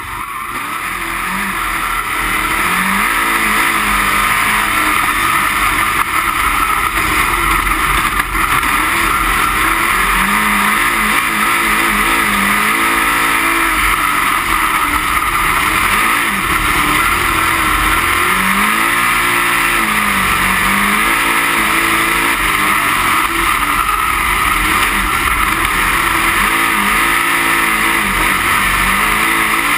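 Dirt-track race car's engine at racing speed, heard from inside the cockpit along with the wind and rumble of the car. The engine note keeps dipping and climbing again every few seconds as the throttle comes off and goes back on around the oval, and it builds up over the first couple of seconds.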